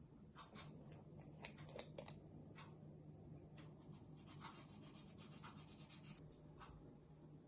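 Near silence, with faint irregular scratching and light clicks, denser about four to six seconds in, over a steady low hum.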